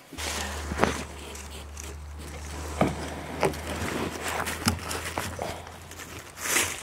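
PVC drain pipe being handled and pushed into an elbow fitting in loose dirt: several sharp knocks and scrapes of plastic pipe, with rustling near the end and a low steady hum under the first part.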